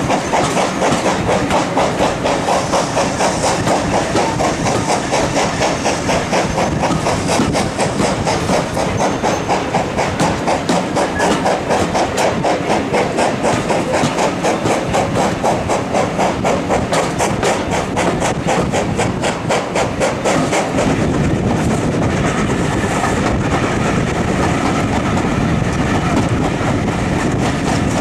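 Steam-hauled passenger train running, heard from an open carriage window: a steady rumble of wheels on rail with a fast, even beat, which gives way about two-thirds of the way through to a smoother, lower rumble.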